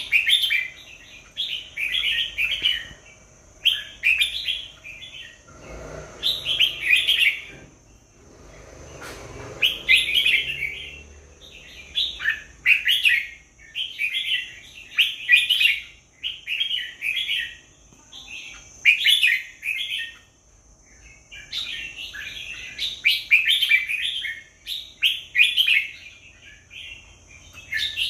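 Red-whiskered bulbul singing: short, bright warbling phrases repeated over and over, with a few short pauses between runs.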